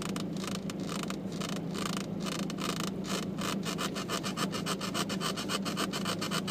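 Rapidly repeated rubbing creaks from plastic trim in a Volkswagen Golf being worked back and forth by hand. This is the persistent squeak that remains after the trim was taken apart. The strokes speed up from about three to about six a second, over a steady low hum.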